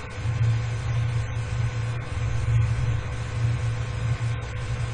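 A steady low hum that wavers slightly in strength, with a faint even hiss behind it.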